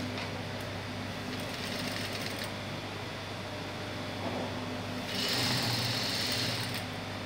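Industrial single-needle sewing machine stitching a trouser side seam in two runs: a short one about a second in and a louder, longer one about five seconds in, over a steady low hum.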